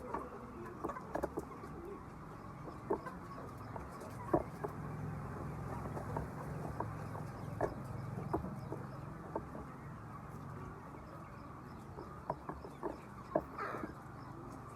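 Egg-laying hens clucking: many short, irregular clucks from a flock over a steady background din, with a low hum underneath through the middle.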